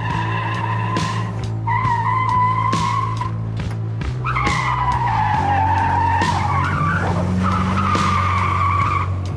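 Dubbed car tire-squeal skid sound effects, four squeals of one to three seconds each, over a steady low drone.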